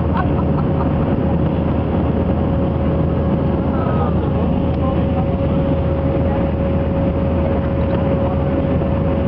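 Airbus A319 cabin noise in flight: the steady drone of the jet engines and the rush of air past the fuselage, with a constant hum tone running through it.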